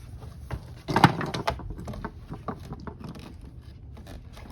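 Toy doll and plastic dollhouse pieces being handled: a run of light taps and clicks, with one louder clatter about a second in.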